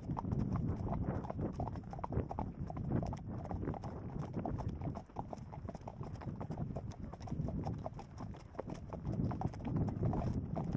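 Horses' hooves clip-clopping on a sandy dirt track, several horses together, heard close from horseback as a dense, uneven patter of hoofbeats.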